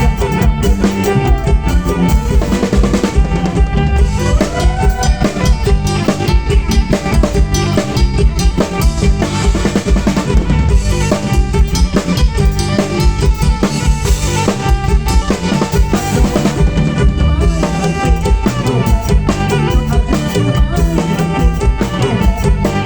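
Kantrum band music with a drum kit beating out a steady rhythm of bass drum, snare and rimshots, and melodic instruments playing over it.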